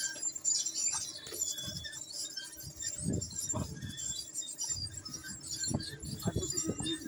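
Light metallic clinking and rattling from a watermelon harvester's conveyor boom, with a few dull thumps about three seconds in.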